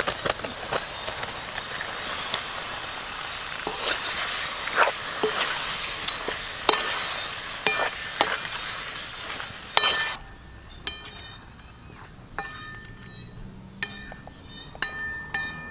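Food sizzling as it fries, with sharp clinks of a utensil being stirred against the pan. About ten seconds in the sizzle cuts off suddenly, and short repeated high bird calls follow.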